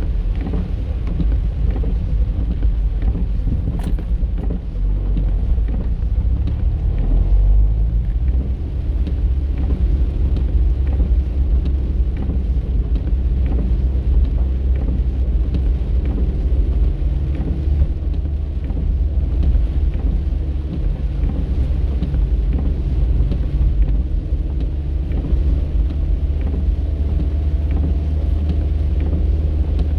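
Car engine and tyres on wet pavement heard from inside the cabin: a steady low rumble whose engine note climbs about six to eight seconds in as the car picks up speed, then holds level.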